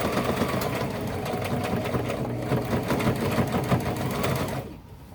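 Sewing machine stitching the hem of a pair of jeans at a steady, fast rate, then stopping about four and a half seconds in at the end of the seam.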